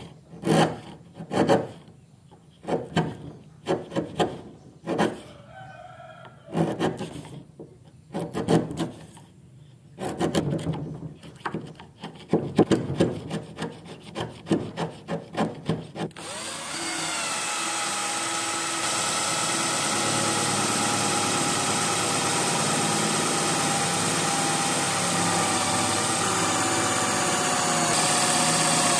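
Repeated, irregular strokes of a hand tool working wood, scraping or sawing. About sixteen seconds in, a small power tool's motor starts and runs steadily with a high whine.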